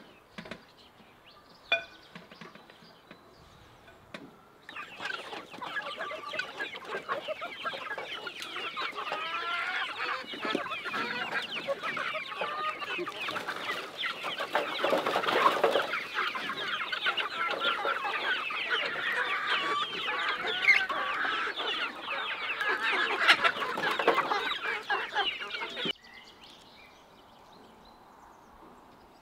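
A flock of chickens clucking and squawking in a dense, overlapping chorus as garlic-stalk trimmings are fed to them. It starts about five seconds in and cuts off abruptly a few seconds before the end.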